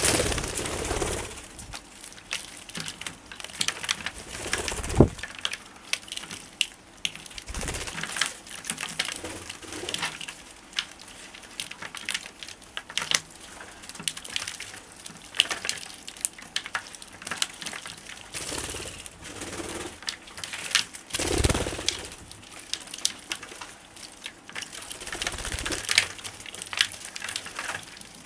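A flock of rosy-faced lovebirds bathing in a shallow dish of water: constant chirping and chattering with sharp little clicks, broken several times by louder bursts of wing-flapping and splashing.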